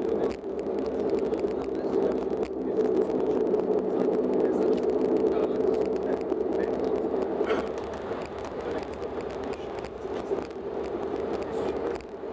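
Steady cabin drone of a Bombardier Dash 8-Q400's turboprop engines and propellers as the airliner taxis, heard from a window seat beside the propeller. The drone eases slightly about two-thirds of the way through.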